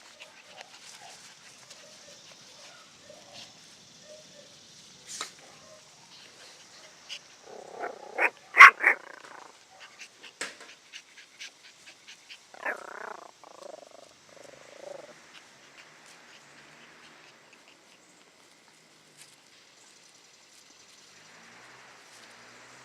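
Puppies barking and yipping: soft, short calls at first, a burst of loud barks about eight seconds in, and another run of barks a few seconds later.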